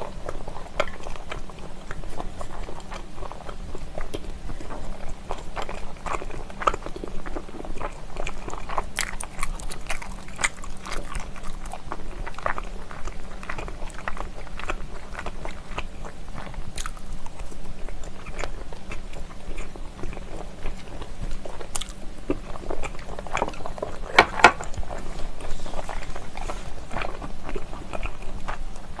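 A person chewing stir-fried pork skin close to the microphone: a steady run of short mouth clicks and smacks, loudest about five seconds before the end.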